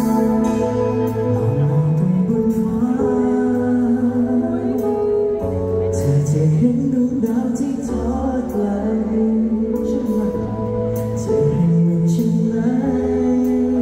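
A man singing live into a microphone over backing music, through a concert sound system.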